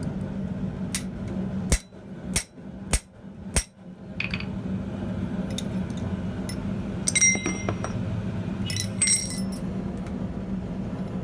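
Hand hammer striking a steel punch set inside a wrapped iron candle-cup coil on an anvil: five sharp metallic blows about two-thirds of a second apart, tightening the cold wrap. Then a few ringing metal-on-metal clinks as the hammer and iron piece are handled on the anvil.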